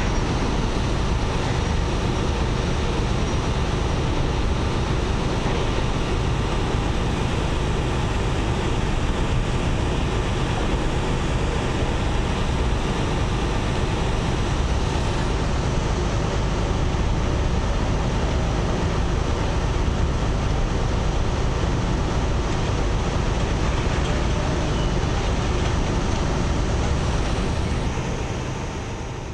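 Steady low rumble of marine diesel engines with a constant hiss over it, fading out at the very end.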